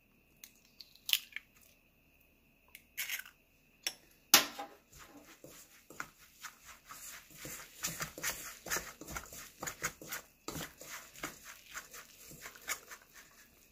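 A few sharp clicks as an egg is broken open by hand, and a louder knock about four seconds in. From about five seconds in, a metal utensil stirs elm seeds and flour in a stainless steel bowl with quick, uneven scraping and clicking strokes.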